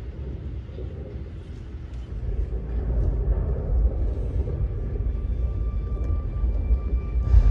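Deep, steady rumble from the show's soundtrack over the theatre's sound system, swelling about two seconds in and again near the end, with faint held musical tones coming in about halfway through.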